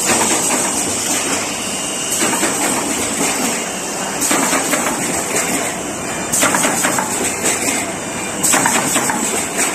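Automatic corrugated paperboard partition assembly machine running: a steady mechanical clatter, with a louder rushing surge about every two seconds as it cycles.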